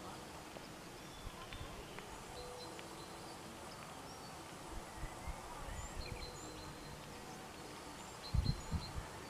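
Small birds chirping and twittering faintly in short scattered calls over a quiet outdoor background. A few low thuds on the microphone come near the end.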